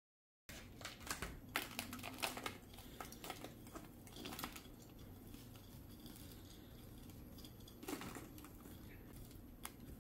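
Faint gritty crunching and crackling of granular bonsai soil, a mix containing lava rock, as fingers press and pack it into a ceramic pot around a juniper's roots. It comes in bunches of small crackles, busiest in the first few seconds and again near the end.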